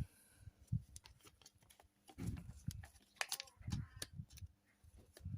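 Faint handling of trading cards and foil card packs: scattered light clicks and soft thumps, with one brief higher sound about three seconds in.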